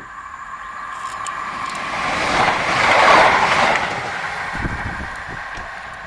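Train passing by at speed, its noise swelling to loudest about three seconds in and then fading, with a steady whine over the rumble and a few low knocks as it goes by.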